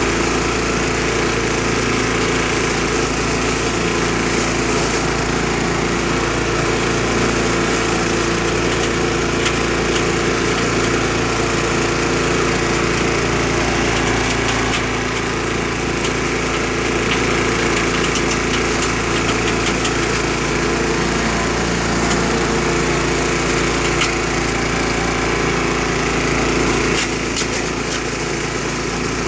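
Craftsman 4-in-1 chipper/shredder yard vacuum's small gasoline engine running steadily as the machine is pushed over the lawn and into a layer of fallen leaves, with scattered light ticks in the middle stretch and a slight dip in level near the end.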